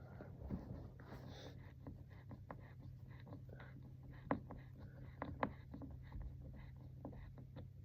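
Faint scratching and small scattered clicks of handling, with two sharper clicks about four and five and a half seconds in, over a steady low hum.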